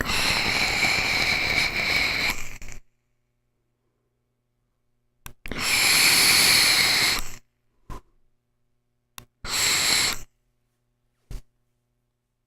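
Vaping on a vaporizer: three breathy, hissing puffs, the first about two and a half seconds long, the second about two seconds, the third about one second, with a few short clicks in the silences between.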